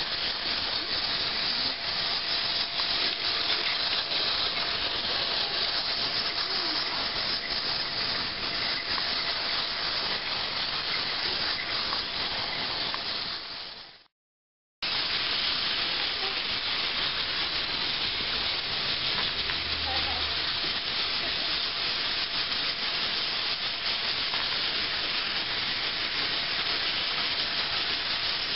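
Battery-powered toy trains whirring steadily as they run around plastic track. The whirring fades out about halfway through, stops for under a second, then resumes.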